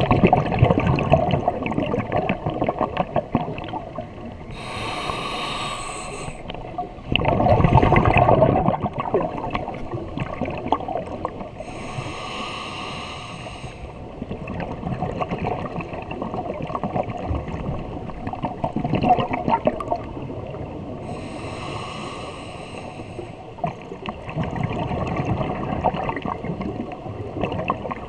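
Scuba diver breathing through a regulator underwater in a slow cycle. Three inhalations come through the demand valve as a hiss with a ringing whistle, each about a second and a half long. Between them are long stretches of crackling, gurgling exhaled bubbles, loudest about a third of the way in.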